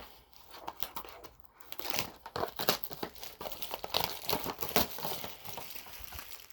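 Plastic wrapping crinkling and tearing as a trading-card blaster box is opened, a dense run of irregular crackles.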